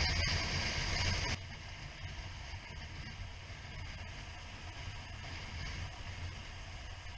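Suzuki SV650 motorcycle under way: steady wind and road noise over a low engine hum. About a second and a half in the sound drops suddenly to a quieter, steadier rush.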